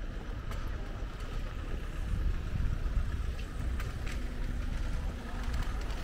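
Outdoor city street ambience: a steady low rumble with a few faint light clicks.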